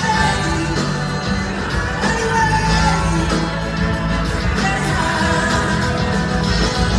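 Live blues-rock band playing: a female lead vocal over electric guitars, bass and drums, heard from the audience in a large hall.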